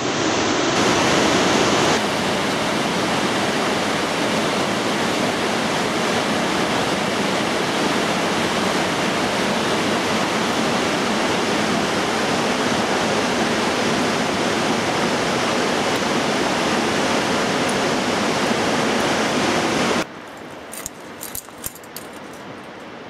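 Steady rushing of water in a mountain gorge, an even hiss that cuts off suddenly near the end, after which a few faint clicks are heard.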